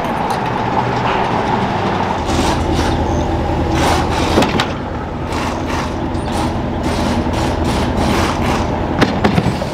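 A vehicle engine running steadily, a little stronger from about two seconds in, with a run of irregular clicks and knocks over it until near the end.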